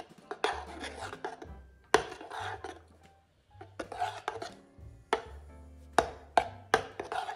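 Metal spoon stirring thick custard cream in a stainless steel pot, scraping the sides and bottom and clinking sharply against the metal, with chunks of butter being melted in. The clinks come irregularly, one loud one about two seconds in and several in quick succession near the end.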